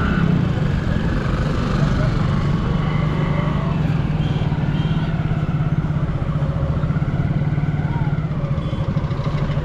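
Motorcycle engine running steadily while the bike is being ridden, with faint voices in the background.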